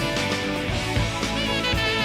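Background music: an instrumental rock track with guitar and a steady drum beat.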